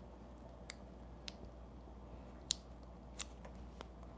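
Faint small clicks and taps, about five spread out, from handling clear stamps and stamping blocks on a craft table.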